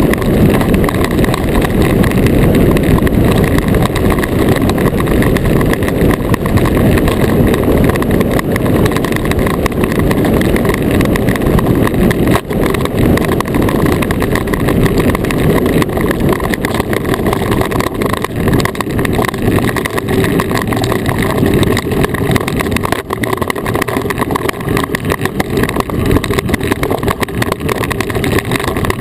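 Iceboat sailing fast on smooth lake ice: a loud, steady low rumble from its runners on the ice, picked up by a camera fixed to the hull.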